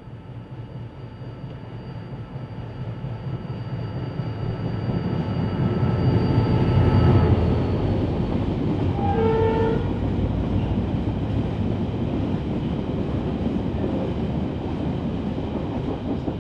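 Irish Rail 071 class diesel locomotive, its EMD 12-cylinder two-stroke engine running steadily as it approaches and passes close by, loudest about seven seconds in. Then comes the rumble of empty ore wagons rolling past. A brief two-note horn sounds about nine seconds in.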